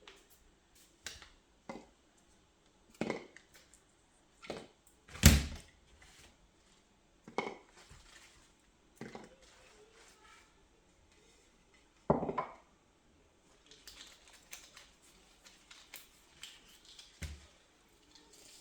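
Kitchen items and produce being handled and set down on a counter while a harvest basket is unpacked: a string of separate knocks and clatters, the loudest about five seconds in and another about twelve seconds in, with lighter clicks and clinks near the end.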